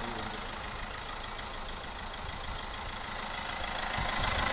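Diesel car engine idling steadily, after an injector has been pulled and refitted.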